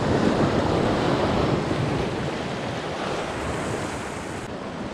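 Small ocean waves breaking and washing over a rocky shoreline. The surge of surf is loudest in the first second or so, then eases.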